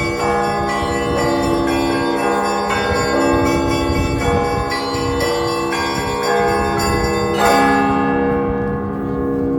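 Russian church bells ringing together: several bells of different pitches struck in a repeating pattern, with overlapping tones that ring on. Near the end the higher, smaller bells stop and the deeper bells keep sounding.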